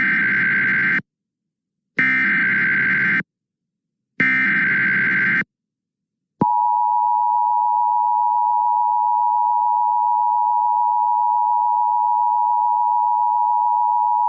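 Emergency Alert System alarm: three short bursts of the SAME digital header, each about a second long with a pause between, then the two-tone attention signal sounds about six seconds in and holds steady.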